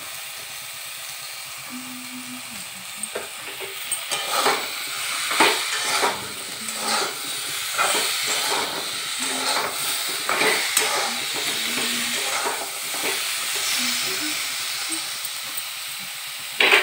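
Chopped vegetables sizzling in oil in a steel wok, the frying stage before water is added. From about three seconds in they are turned in a run of short scraping strokes against the pan, and a sharp knock sounds near the end.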